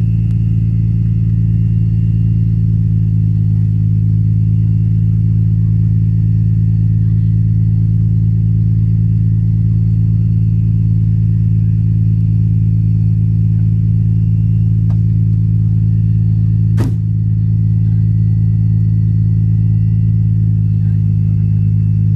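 Nissan Skyline R32 GT-R's twin-turbo straight-six running steadily on a cold start, loud, with a strange noise of unknown cause that the owner wonders may come from something frozen inside. A single sharp click about seventeen seconds in, with a brief dip in the engine sound.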